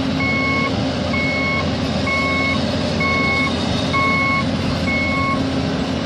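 Heavy-equipment back-up alarm beeping six times, about once a second, over the steady running of a large diesel engine, from a John Deere excavator loaded on a low-bed truck. The beeping stops a little after five seconds.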